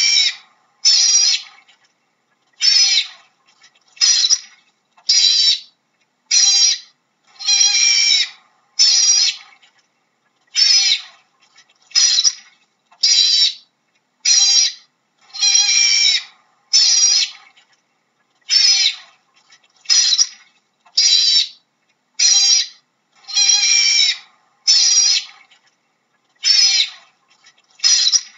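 Otter giving a long series of high-pitched squealing calls, each under a second long, repeated about once a second with short silent gaps between.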